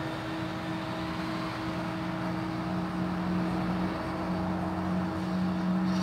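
Steady mechanical hum with a constant low drone that grows a little stronger after about a second and a half, over even background hiss.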